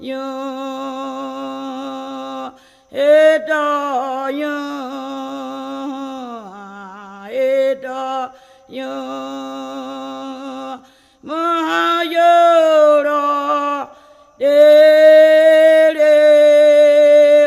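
Brazilian indigenous ritual chant sung unaccompanied, long held notes in phrases of two to three seconds with short breaks between them, one phrase sliding down in pitch about six seconds in.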